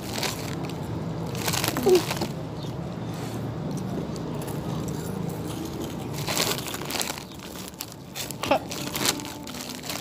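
Crinkling of a plastic Saladix snack bag and crunching of puffed cheese-ball snacks as they are handled and eaten, in several short bursts over a steady low hum.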